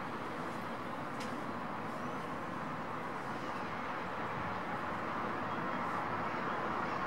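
Steady outdoor background noise, an even hum like distant traffic, with a faint short high sound about a second in.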